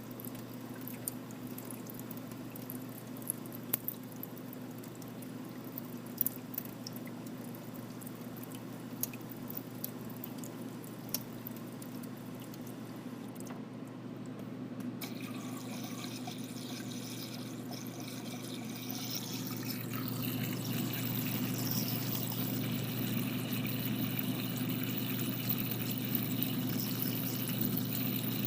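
Commercial drinking fountain running: water pouring and dripping over a steady hum from its cooling compressor. The water noise changes about halfway through and grows louder after that.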